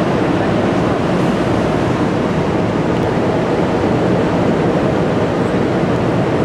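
Steady roar of water discharging from a hydroelectric dam's spillway, an even rushing noise with no change.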